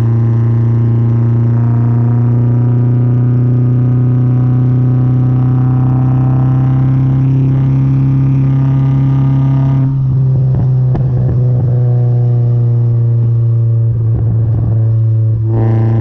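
Mazda MX-5 four-cylinder engine heard through an unbaffled exhaust at the tailpipe while driving: a loud, steady drone that rises slightly in pitch for the first ten seconds. Then, off the throttle, the tone thins and the exhaust pops and crackles for about five seconds before the full drone comes back near the end.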